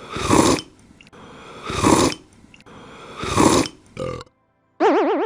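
Three loud burps, about a second and a half apart, each lasting about half a second. Near the end, a wobbling boing sound effect starts.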